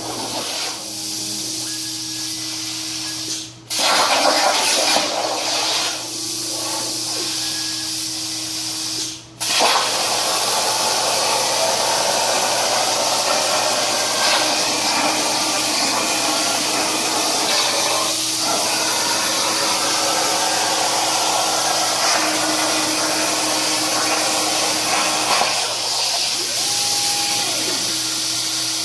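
CNC plasma cutter torch running with a loud, steady hiss, cutting out briefly twice within the first ten seconds and then running without a break.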